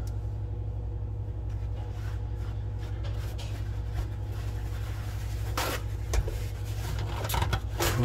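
Paper towels rustling and rubbing as dirty water is wiped out of a dishwasher's sump. A couple of louder crumpling, scraping strokes come in the last few seconds, over a steady low hum.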